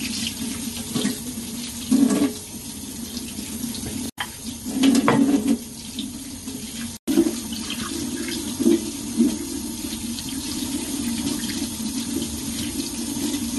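Tap water running into a stainless steel sink while hands rinse pieces of raw squab under the stream, with a few louder splashes as the meat is turned. The sound breaks off for an instant twice.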